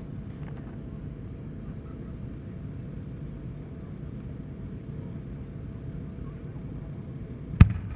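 Steady low outdoor rumble, then near the end a single sharp boom as a firework shell is fired from its mortar tube.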